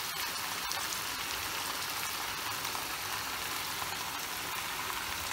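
Minced beef and tomato mixture sizzling steadily in a frying pan, with a faint click or two near the start.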